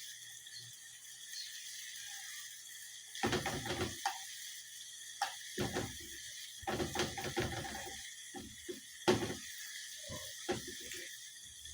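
Irregular clatter and scraping of cooking utensils and cookware being handled, in clusters a few seconds in, over a steady hiss.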